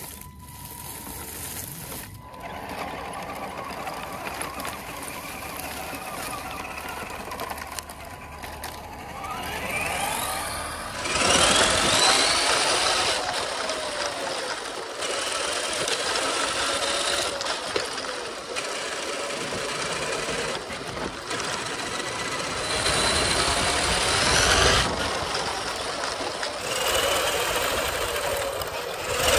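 Electric motor and gear drivetrain of a Tamiya CC01 RC truck whining as it drives, the pitch rising and falling with the throttle. It is quieter at first and louder from about a third of the way in.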